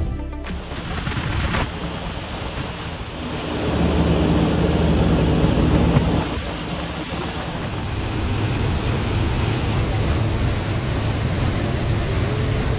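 Speedboat running at high speed. Its engine hums under the loud rush of water from the wake and wind, swelling louder from about three to six seconds in.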